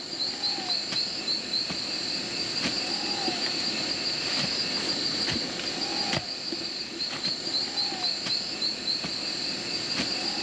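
Forest insects buzzing in a steady, high, pulsing chorus, with a low rising-and-falling call repeating every couple of seconds and scattered light knocks.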